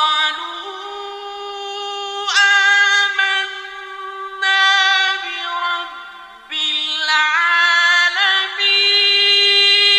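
A male Quran reciter chanting in the melodic mujawwad style of tajweed: long held notes with ornamented upward glides in pitch. Each phrase is sustained for about two seconds before the next begins.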